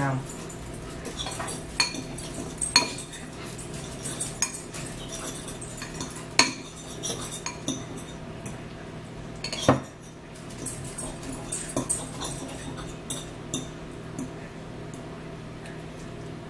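Metal forks clinking and scraping against bowls of noodles during a meal: scattered light clinks, the sharpest about ten seconds in.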